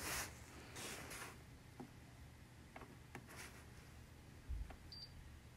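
Quiet room with faint handling noises: a few light clicks and soft rustles, a low thump about four and a half seconds in, and a very short high blip just after.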